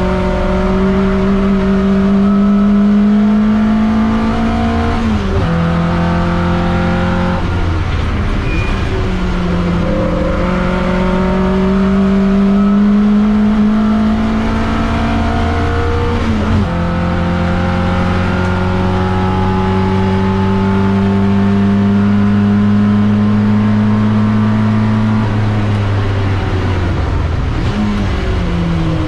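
TVR Vixen race car's engine heard from inside the cockpit, pulling hard at full throttle. Its pitch climbs steadily, then drops sharply at gear changes about five, seven and sixteen seconds in, and falls away again near the end.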